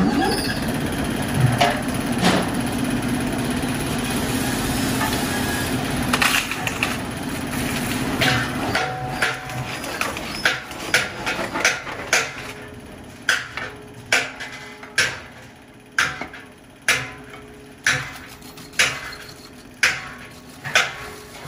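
Old lathe turning a large spoked metal pulley wheel while a hand-held cutting bar bears on it: a steady hum and rasp of cutting for the first eight seconds or so, then sharp knocks about once a second over the running lathe.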